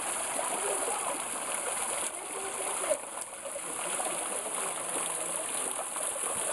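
Small waterfall: thin streams of water falling down a moss-covered rock face and splashing below, a steady rushing noise.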